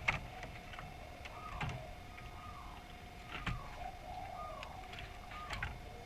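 Spotted dove (derkuku) cooing in a series of short coos that fall in pitch, about one a second, with a few sharp clicks and a faint steady tone behind.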